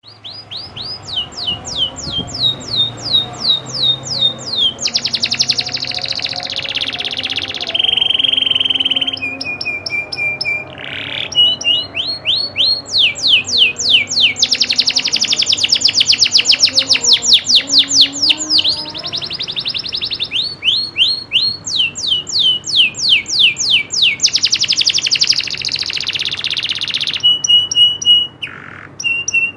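Domestic canary singing a long, unbroken song: runs of quick repeated downslurred notes, very fast trilled rolls, and a few held steady whistles, loud throughout.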